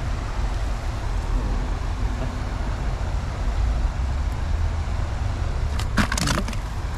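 Steady low rumble of wind on the microphone over the hiss of a fast-flowing river. About six seconds in there is a short clatter as a fish is dropped into a plastic bucket.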